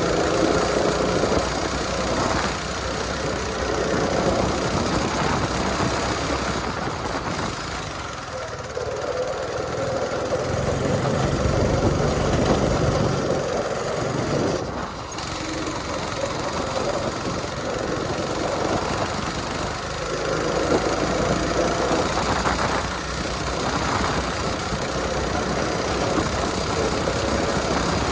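Low-powered rental go-kart engine running hard, heard from the driver's seat while the kart laps the track. Its level swells and drops every few seconds, loudest about halfway through.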